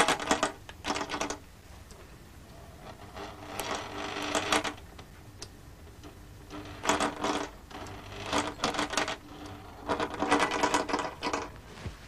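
Electronic sewing machine, its needle moved by stepper motors, running in five short bursts of one to two seconds each with pauses between them. Each burst carries a steady pitched whine under the stitching noise.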